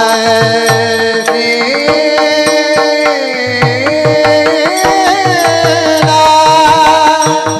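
Marathi kirtan singing in the Bhairavi chaal: a held, ornamented vocal line that glides and wavers, over steady sustained accompanying notes and repeated hand-drum strokes with a sliding bass.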